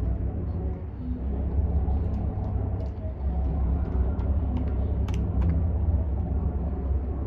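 Departing boat's engines giving a steady low rumble, with a few faint clicks about five seconds in.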